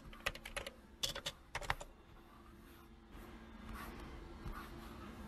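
Laptop keyboard keys clicking, a few scattered light clicks in the first two seconds, then only faint room noise.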